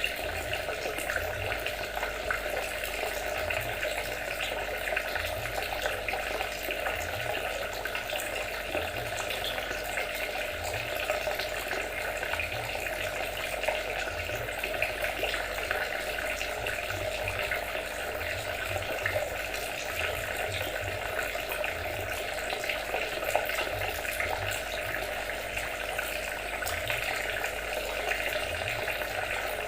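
Steady trickling, splashing water, running on without a break.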